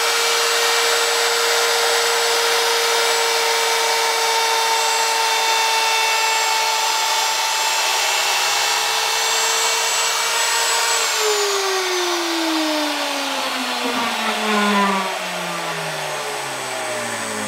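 Wood router motor running at full speed with a steady high whine. About eleven seconds in it is switched off and winds down, its pitch falling steadily, with a couple of light knocks as it slows.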